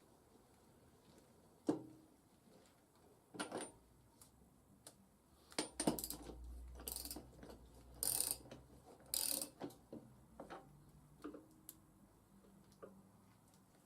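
Scattered metallic clinks, clanks and knocks of metal parts and hand tools being handled and set down, about a dozen separate hits, busiest between about 6 and 10 seconds in.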